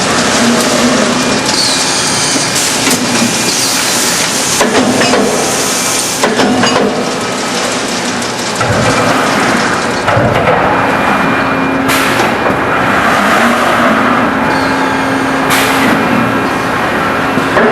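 Automated sheet-metal production line running: loud continuous machinery noise with a steady hum and repeated metallic knocks, and two short sharp hisses in the second half.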